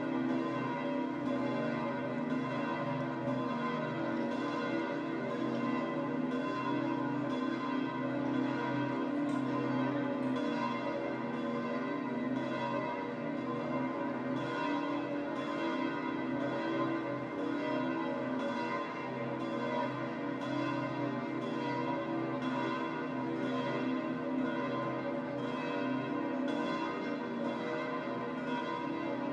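The large church bells of St Peter's Basilica ringing in a continuous peal. Strokes fall about once or twice a second over a steady wash of overlapping ringing tones.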